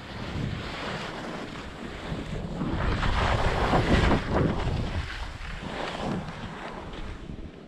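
Wind rushing over the microphone of a camera carried by a skier on the way down, mixed with skis scraping across firm, wind-packed snow. The rush swells and ebbs with the turns and is loudest in the middle.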